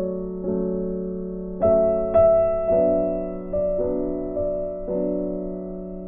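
Background music: soft keyboard chords in a slow, gentle piece, each chord struck and left to fade before the next.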